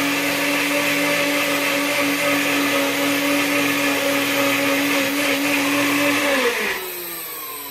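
Blender motor running at a steady pitch, blending a thick raw-cashew vegan cheese sauce. It is switched off about six and a half seconds in and spins down with a falling whine that fades out.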